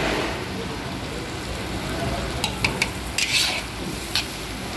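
Liver frying in a pan with a steady sizzle. A utensil clicks against the pan a few times about halfway through, with a short scraping hiss between the clicks, as the liver is stirred.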